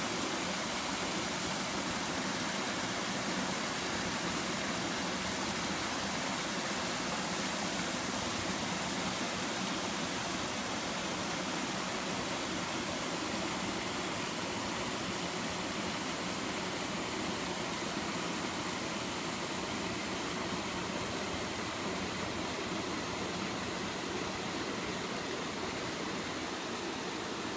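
Water pouring over a concrete dam spillway, running high after torrential rain: a steady rushing noise that grows slightly fainter near the end.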